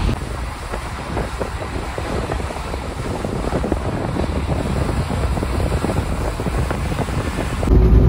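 Car moving along a hail-covered road: a steady low rumble with a dense crackling and wind buffeting the microphone. Music cuts in just before the end.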